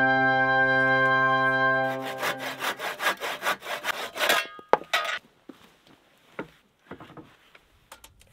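A held chord of background music ends about two seconds in. It is followed by a hand saw cutting wood in quick, rhythmic back-and-forth strokes for about three seconds, then a few faint knocks.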